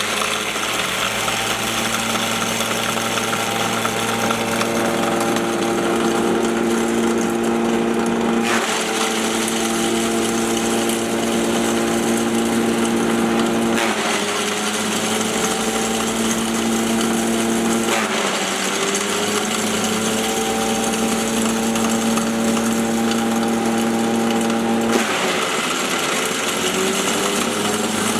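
Maize grinding mill running steadily with a loud, rough mechanical sound under a steady hum. Its pitch drops suddenly four times, about 8.5, 14, 18 and 25 seconds in, and climbs back over a few seconds each time.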